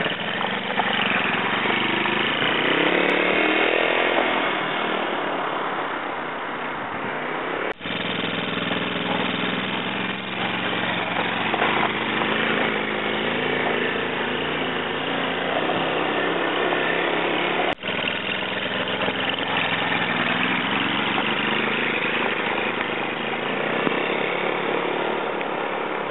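Small engine of a child's mini quad bike running as it is ridden, a buzzy engine note rising and falling with the throttle. The sound cuts out for an instant twice, about 8 and 18 seconds in.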